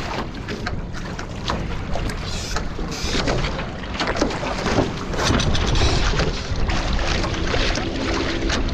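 Water rushing and splashing along the hulls of a Nacra 15 sailing catamaran under way, with wind buffeting the microphone in a low rumble.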